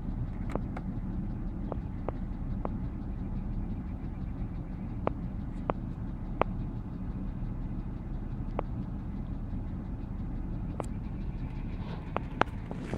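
BMW X3 engine idling steadily, with sharp clicks or knocks at uneven intervals over the drone. This is the knocking noise that the owner hears on a chilly morning; the oil level has not dropped.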